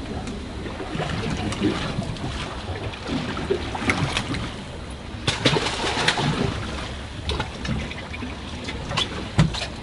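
Water sloshing and slapping against the hull of a small fishing boat at sea, with wind and scattered knocks and clatter on board.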